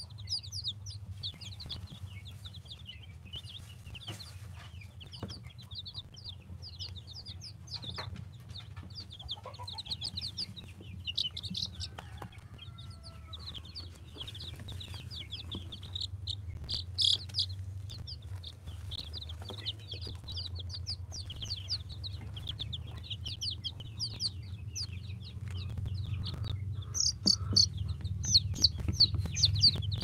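Baby Aseel chicks peeping: many short, high chirps overlapping nonstop, busiest and loudest near the end, over a steady low hum.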